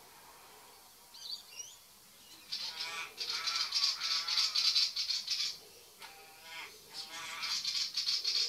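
A crow and a willie wagtail calling harshly in two long runs, the first starting about two and a half seconds in and the second near the end: the wagtail scolding the crow away from its nest.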